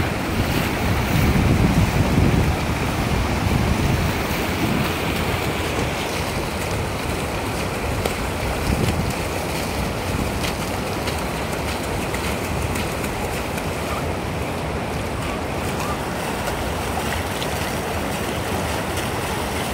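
Shallow river water rushing steadily over a rock ledge, an even hiss, with wind buffeting the microphone in the first few seconds and a few hand splashes in the water.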